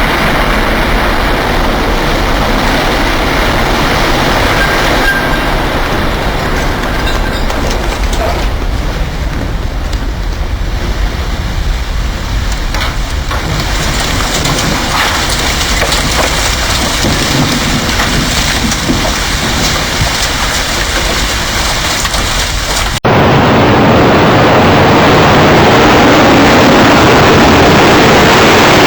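Loud, continuous rumbling roar of a World Trade Center tower collapsing, recorded close to the base. About 23 seconds in, an abrupt cut switches to another recording of the collapse, louder still.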